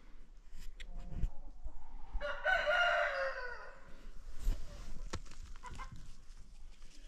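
A single drawn-out animal call, a little over a second long, that falls in pitch at its end, with a few footsteps on snowy ground before and after it.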